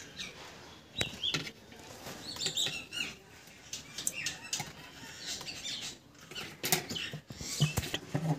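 Aluminium wire being bent and handled as a wire frame is shaped, giving scattered clicks, ticks and light rattling.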